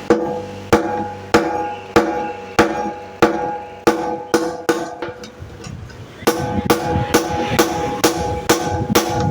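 Hand-hammer blows forging hot leaf-spring steel on an anvil, each strike followed by a ringing of the anvil. The blows come about one every half second, lighter and sparser for a stretch in the middle, then quicken to about three a second about six seconds in.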